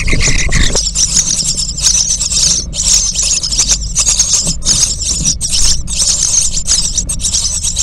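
Common starling nestlings begging, close to the microphone: a raspy, hissing chatter broken into quick, uneven bursts as the adult feeds them, over a low steady hum.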